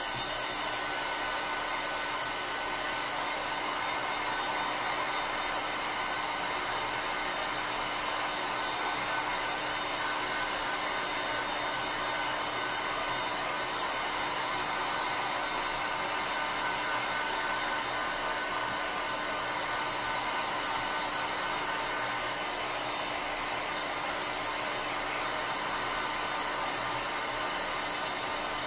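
Handheld hot-air dryer blowing steadily over wet watercolour paint, a constant whooshing whir with a steady hum in it.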